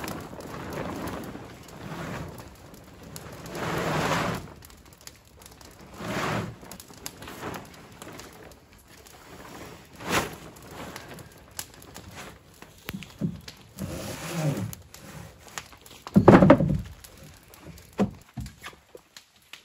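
Plastic tarp crinkling and rustling in swells as it is pulled up and spread over a roof, the loudest crackle about sixteen seconds in, with scattered short knocks toward the end.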